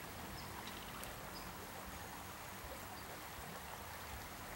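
Shallow stream running over a rocky bed: a steady, even rush of water, with a few faint, short high chirps now and then.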